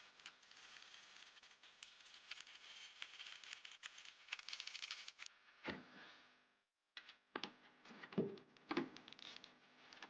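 Ratchet clicking in a rapid run as the top mount's 13 mm bolts are done up, with scraping of tools on metal and a few separate clunks near the end.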